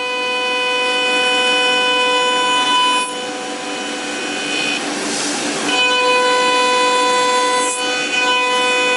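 CNC milling machine spindle and end mill cutting a polyacetal (POM) workpiece: a steady high whine with many overtones. It weakens about three seconds in, a short rough rush of cutting noise comes just after five seconds, then the steady whine returns.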